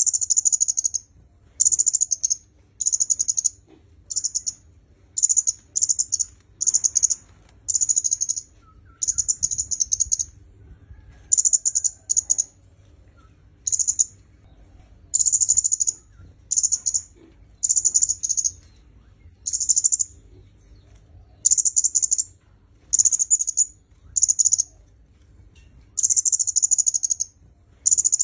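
Kemade kepala merah, a red-headed flowerpecker, calling: short, very high, fast-trilled phrases of half a second to a second, repeated every second or two.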